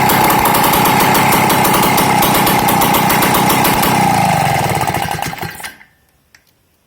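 Small petrol engine of a go-kart fitted with a chainsaw ignition, running steadily. About four seconds in it is shut off and slows, dying out within about two seconds. After that there is near silence with a few faint clicks.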